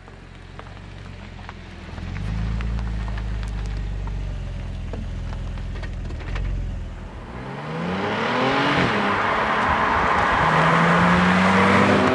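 Audi S5 Cabriolet's supercharged 3.0-litre V6 through its stock exhaust. A low steady rumble gives way, about seven seconds in, to the engine revving up hard. Its pitch climbs, drops at a gear change and climbs again, loudest near the end.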